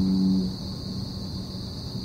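A low, steady foghorn blast that cuts off about half a second in, leaving a faint lingering low tone, over a continuous chorus of crickets.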